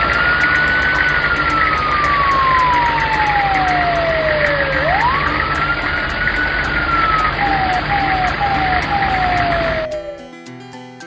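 Fire engine siren over engine rumble: two slow wails, each rising quickly and then falling, then a few short falling whoops, cutting off suddenly about ten seconds in.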